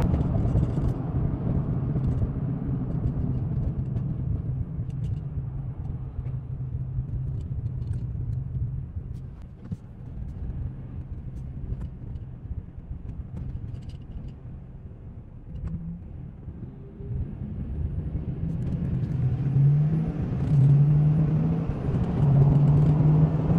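Engine and road rumble of a car heard from inside its cabin while driving. The noise drops as the car slows almost to a stop about ten seconds in, then builds again as it speeds up, with the engine note climbing near the end.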